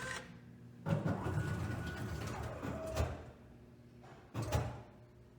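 Drink vending machine's vend mechanism running for about two seconds, with a faint steady whine, then a short second burst near the end, as it tries to vend a Coke from a column that is sold out.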